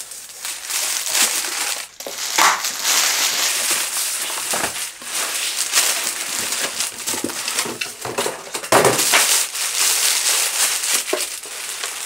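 Clear plastic bag crinkling and rustling, with cardboard scraping, as a boxed portable generator is pulled out of its packaging by hand; irregular crackles throughout.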